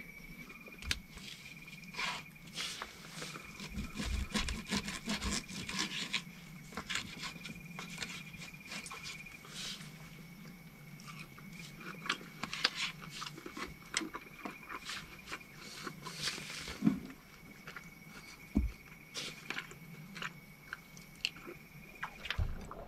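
A person eating lamb chops and rice: chewing with irregular clicks and scrapes of cutlery and dish. A faint steady high whine runs underneath.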